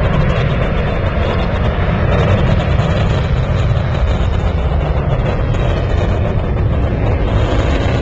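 Steady, loud jet noise from a Blue Angels F/A-18 Hornet flying over, with low wind rumble on the camcorder microphone.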